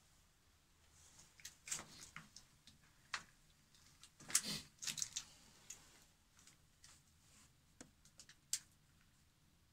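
Scattered light rustles, scuffs and clicks from people moving about and the phone rubbing against clothing. The loudest cluster comes about four to five seconds in, with a few sharp ticks near the end.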